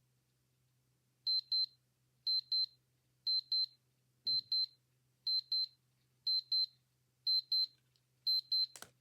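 Digital watch alarm beeping: high-pitched double beeps, one pair a second, eight pairs in all, ending with a sharp click.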